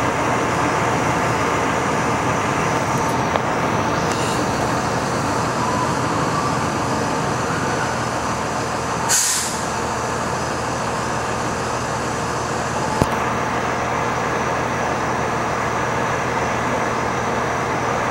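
Fire engine's diesel engine idling steadily with a low hum, with a brief sharp hiss of air about nine seconds in and a single click about four seconds later.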